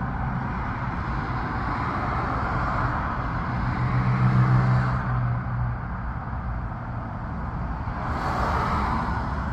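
Road traffic: a steady wash of passing cars with a low engine hum that swells as one vehicle goes by about four seconds in, and another swell of tyre noise near the end.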